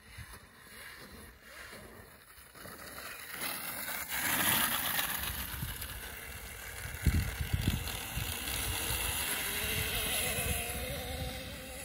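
Husqvarna EE5 electric kids' motocross bike riding by: the electric motor's whine and the tyres on dirt swell to their loudest about four seconds in, and near the end the motor's whine rises in pitch as the bike speeds up.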